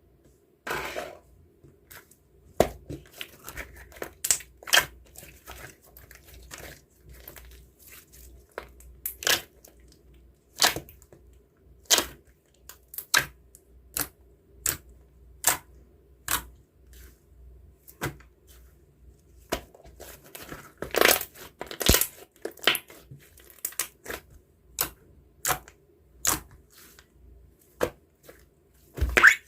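Irregular crackling and tearing clicks, as of something soft being squeezed and pulled apart by hand, over a faint steady hum. The clicks come about one or two a second and grow denser and louder about two-thirds of the way through.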